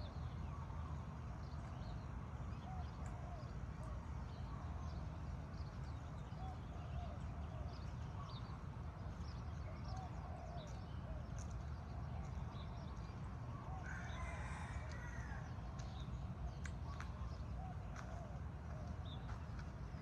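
Morning chorus of many birds chirping and calling over a steady low rumble. About fourteen seconds in, a rooster crows once.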